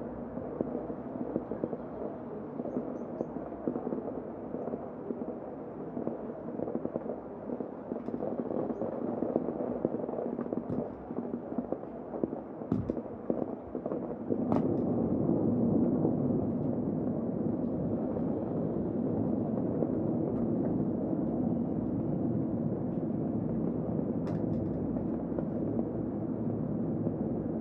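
Heavy rain falling steadily, with a few sharp clicks of drops striking something hard; the downpour grows louder about halfway through.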